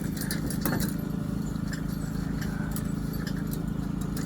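An engine running steadily with an even low hum, with a few faint clicks and knocks over it.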